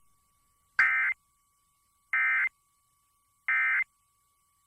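Emergency Alert System end-of-message data burst, sent three times: three short, harsh bursts of digital data about 1.3 seconds apart, which mark the end of the alert.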